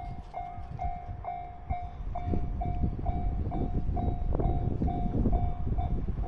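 Japanese level-crossing electronic warning bell ringing, a steady ding about twice a second, over the low rumble of a train on the line.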